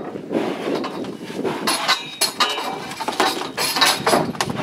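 Steel pipe bars of a cattle crush clanking and knocking, a string of sharp irregular metal knocks, some ringing briefly, as a bull is held inside.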